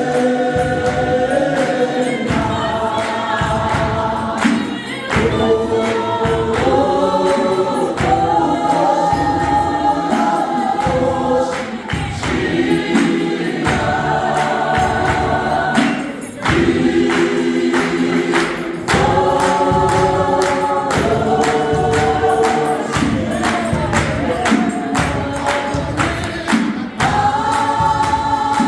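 Gospel choir singing in full multi-part harmony, holding chords that shift every second or two, over a steady percussive beat.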